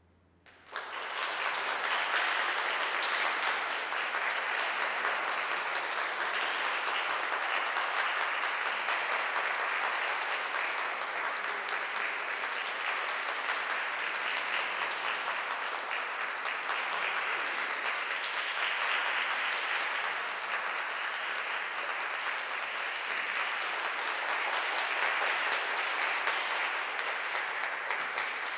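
Audience applause breaking out about a second in, after a moment of near silence, then going on steadily as a dense wash of clapping.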